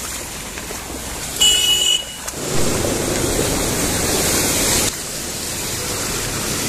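Floodwater from an overflowing river rushing across a road, a steady noisy hiss that grows louder about two and a half seconds in. A brief high tone sounds about a second and a half in.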